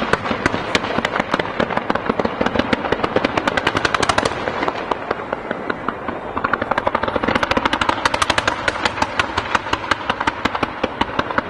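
Fireworks fired in rapid volleys: a fast, continuous string of sharp reports, many a second, like machine-gun fire. It thins a little near the middle, then comes dense again.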